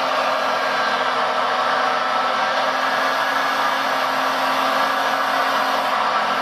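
Battery-powered hydraulic pump of an RC Liebherr 956 excavator running steadily, a whirring hiss with a low hum under it, as the boom and breaker arm move.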